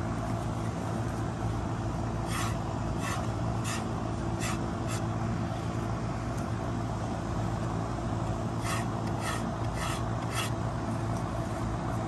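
A child's paintbrush scraping against a birdhouse in short strokes: a run of about six strokes a couple of seconds in, then about five more near the end. A steady low hum runs underneath.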